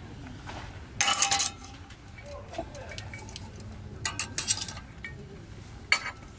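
Metal camping cups and mugs clinking against metal S-hooks and an iron hanging rack as they are hung up by hand. Three clusters of clinks: about a second in, around four seconds in, and a short one near six seconds.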